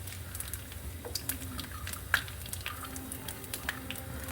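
Chopped coconut pieces frying in hot ghee in a pan: scattered crackles and pops.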